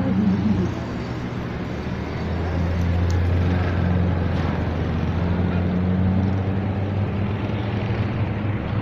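A road vehicle's engine running close by: a steady low drone that grows louder about two seconds in and holds, over a background of outdoor noise.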